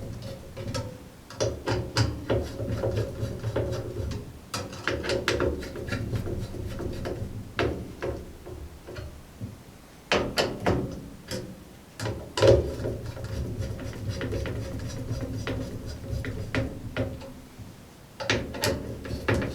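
Number 2 screwdriver tightening a CPU heatsink's mounting screws, in several spells of clicking and scraping with short pauses between them.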